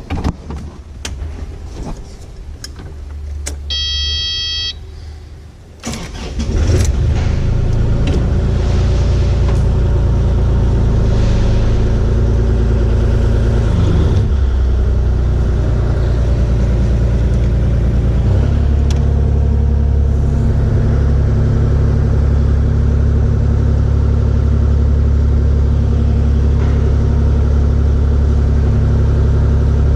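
Kubota KX040-4 mini excavator's diesel engine being started: a few clicks and a one-second electronic beep from the machine, then the engine catches about six seconds in and runs steadily, its note stepping up and louder about eighteen seconds in.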